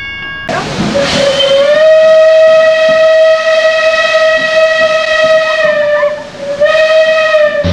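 Steam locomotive whistle: a burst of steam hiss, then one long, loud whistle blast, a brief break, and a second blast near the end.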